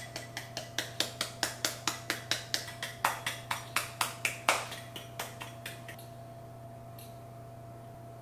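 Stainless steel powdered-sugar shaker tapped by hand in a quick, even rhythm, about four metallic taps a second, as the sugar is dusted onto cakes; the taps fade and stop about six seconds in.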